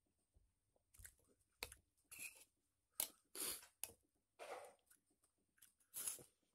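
Eating from a plate: a metal spoon clicking and scraping against a glass plate while scooping up rolled omelette, with short bursts of chewing. A few sharp clicks and brief scrapes come at irregular intervals, the loudest about three seconds in and again near the end.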